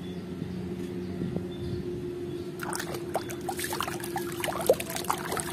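Water splashing and sloshing in a basin as a mud-covered toy animal figure is swished and rubbed clean by hand. The splashing starts about two and a half seconds in, as a run of small splashes and drips.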